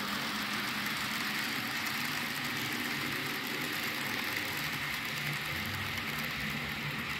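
Model freight train's container wagons rolling over the track: a steady, even rattling hiss of small wheels on rails, with a faint low hum underneath.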